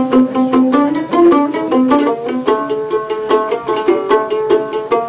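Background music: a fast melody of quickly repeated plucked string notes over a steady beat.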